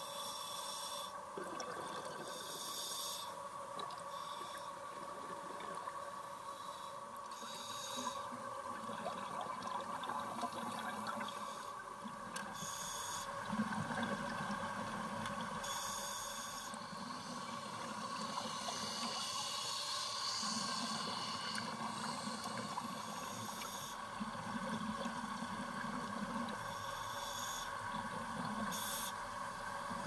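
Scuba diver breathing through a regulator underwater: short bursts of exhaled bubbles every few seconds over a steady hum.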